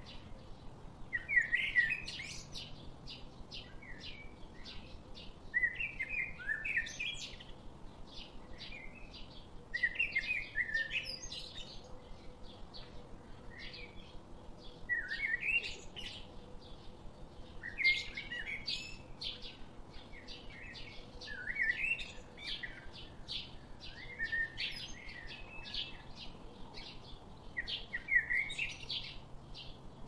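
Songbirds singing: a short warbling phrase repeats every few seconds, with quick high chirps in between.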